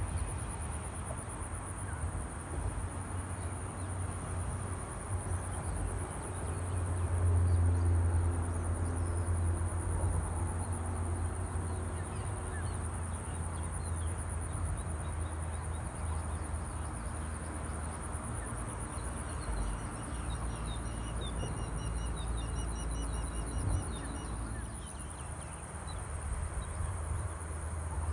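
A steady high-pitched insect trill, with a low rumble underneath. About twenty seconds in, a bird gives a run of short repeated notes for a few seconds.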